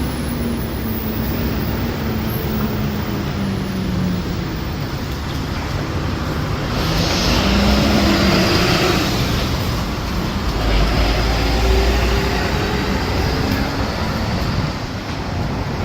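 Road traffic on a city street: vehicle engines running and tyres passing in a steady stream. A louder vehicle goes by about seven seconds in, and a deep rumble follows a few seconds later.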